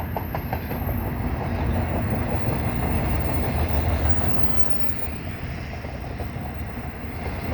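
Double-stack container freight train's cars rolling past below, a steady noise of steel wheels on rail.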